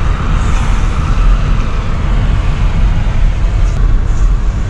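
A car driving on a rain-wet road, heard from inside the cabin: a steady low road-and-engine rumble with an even tyre hiss over it.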